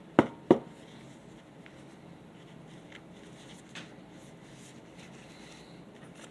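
Two sharp clicks of a desk stapler driving a staple through mini-comic pages, followed by faint rustling and light ticks of paper being handled.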